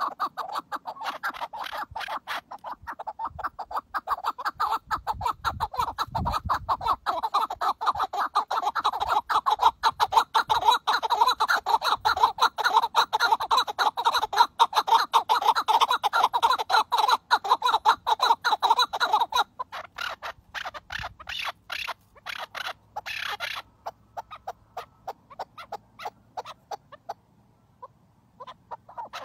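Chukar partridges calling: a fast, unbroken run of short clucking notes that thins out to scattered, weaker notes about two-thirds of the way through.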